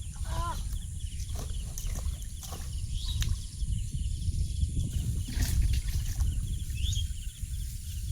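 Outdoor rural ambience: a steady low rumble with a few short high chirps, scattered brief clicks and a short pitched call near the start.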